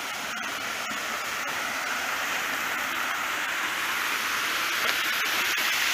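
Water cascading down the steps of a small concrete weir into a river pool: a steady rushing hiss that grows slowly louder.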